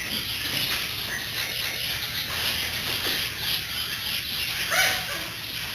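Pet shop animal ambience: a steady chatter of birds chirping and squawking, with a brighter burst of calls near the end.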